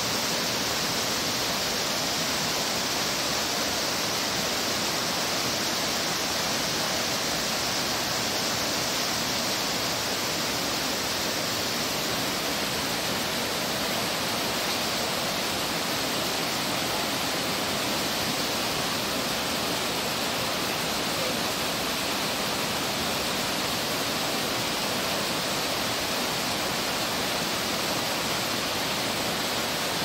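Whitewater of a fast mountain river rushing over rocks in rapids: a steady, even rush of water without pause.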